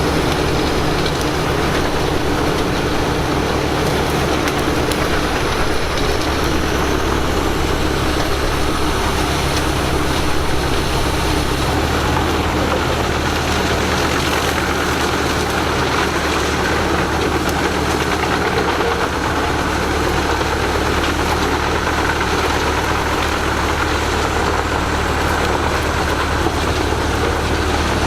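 Heavy diesel machinery running steadily, with a deep engine hum that shifts slightly about twelve seconds in.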